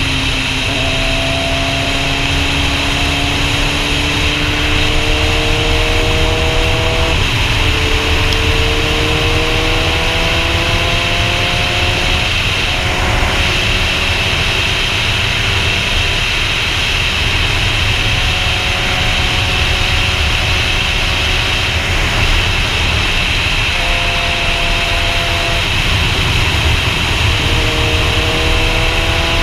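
Sport motorcycle engine under way, its note climbing slowly through the gears, dropping at a shift about seven seconds in, holding steady through the middle and rising again near the end. Heavy wind rush on the helmet-mounted camera's microphone runs under it.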